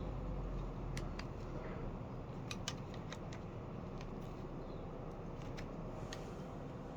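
Scattered small clicks and taps, about ten of them, from a screwdriver working at the plastic parts of a washing machine's water inlet valve, over a steady low hum.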